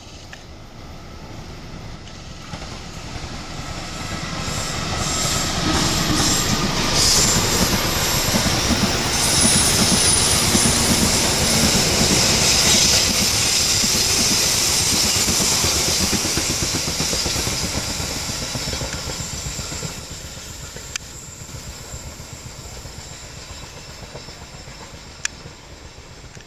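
Diesel-hauled passenger train passing close on a curve. The sound builds for several seconds, then wheels clatter over the rail joints and squeal against the rails as the coaches go by. It fades gradually over the last several seconds.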